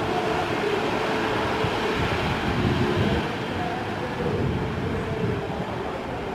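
Landing aircraft's engines droning steadily as it rolls out along the runway, heard as a dense low rumble with a faint steady hum on top, easing slightly after about three seconds.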